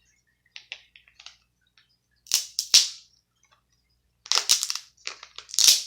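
Crab claw shells cracking and snapping as they are broken open by hand for the meat. The sharp cracks come in small clusters, the loudest near the end.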